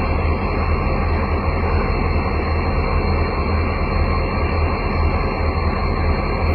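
EMD two-stroke diesel locomotive engine running with a steady, deep hum.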